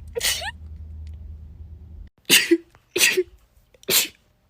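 A person sneezing four times: one sneeze, then three quick sneezes in a row, each less than a second apart.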